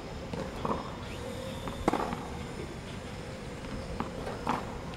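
Tennis ball struck by a racket: one sharp crack about two seconds in, with a few fainter knocks around it.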